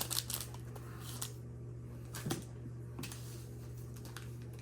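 Trading cards being handled and sorted by hand: a few light clicks and taps of card stock, most of them in the first second, over a steady low hum.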